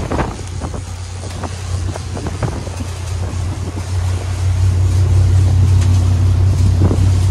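Boat's inboard engine drone while cruising under way, steady and low, growing louder about halfway through, with wind buffeting and water rushing past the hull.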